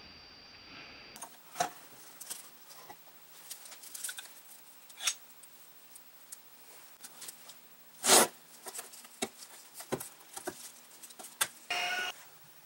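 Small clicks, taps and scrapes of an Atlas horizontal mill's metal parts being handled and fitted by gloved hands. There is a louder knock about eight seconds in and a brief ringing metallic clatter near the end.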